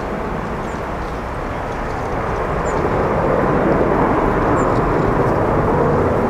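Twin jet engines of an Airbus A330 airliner at take-off thrust as it climbs out: a broad, steady rushing noise that swells louder about two seconds in and holds.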